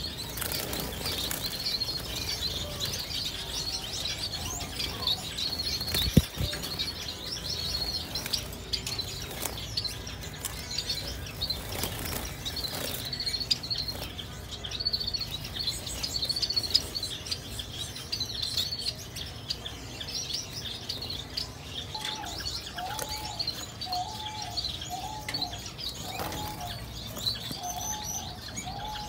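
Small aviary birds chirping and twittering continuously, with some wing flutters. A single sharp knock comes about six seconds in. In the last quarter a lower call repeats about once a second.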